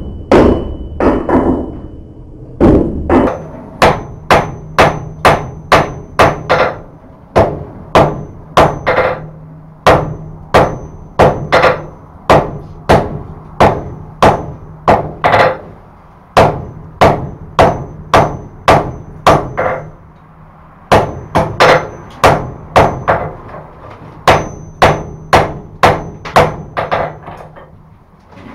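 Hand hammer striking a glowing billet on the anvil in runs of about two blows a second with brief pauses, each blow with a short metallic ring: forge-welding a stack of farrier's rasp, high-carbon wagon tire and wrought iron. The blows stop near the end.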